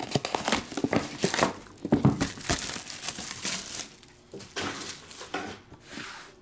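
Plastic shrink wrap being torn and crumpled off a trading-card box, crinkling busily for the first three seconds or so, then sparser rustles.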